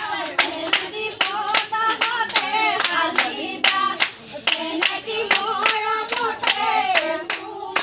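Group of people clapping hands in a steady rhythm, about two to three claps a second, while voices sing over it.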